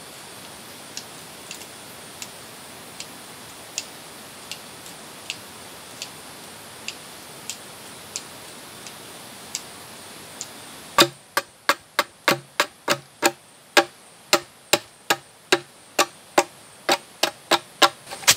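A blade chopping green bamboo: a quick run of loud, sharp strokes, about three a second, each with a short hollow ring, starting a little past halfway. Before that, only faint, evenly spaced light ticks over a steady forest hiss.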